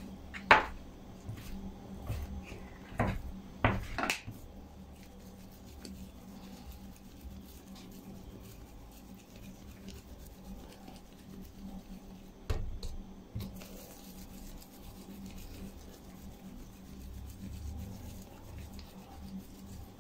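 Dough scraper chopping through bread dough and knocking on the countertop several times in the first few seconds, with one more knock about twelve seconds in. In between, soft rubbing of hands rounding the dough portions into balls on the counter.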